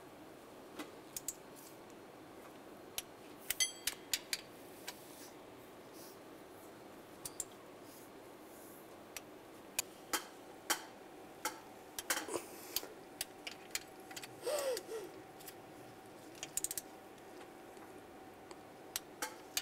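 Torque wrench and socket working the water pump bolts on the first tightening pass to 11 foot-pounds: scattered sharp clicks and metal clinks at irregular intervals, with a short ringing clink about three and a half seconds in.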